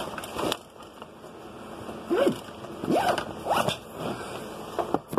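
A zipper pulled in several short, quick strokes, each with a rising-and-falling rasp.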